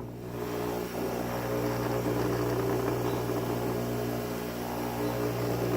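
Steady low electrical hum, even throughout.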